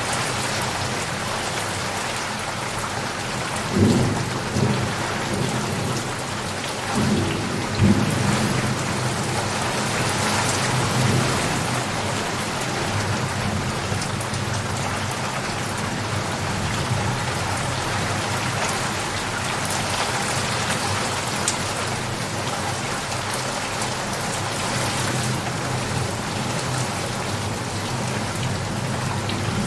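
Steady rain falling, with thunder rumbling twice, about four seconds in and again around eight seconds.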